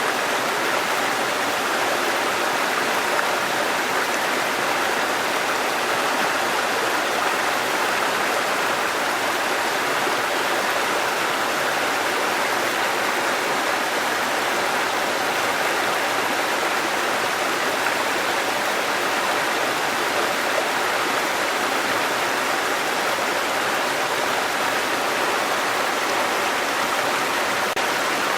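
Waterfall: water falling and rushing in a steady, unbroken hiss.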